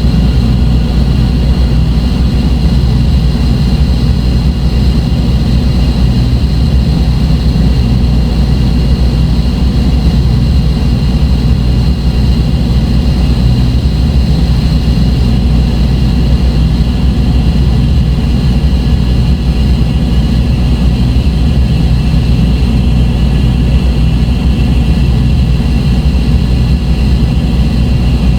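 Dark ambient electronic drone: a loud, steady low rumble with a few held high tones above it, engine-like and unchanging.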